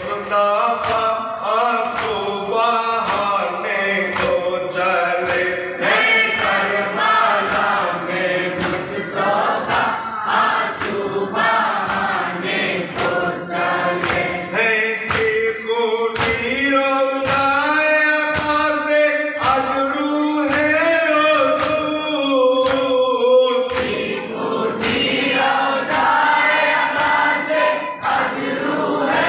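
Group of men chanting a Muharram lament in unison, kept in time by matam, a steady beat of hands struck on chests a little more than once a second.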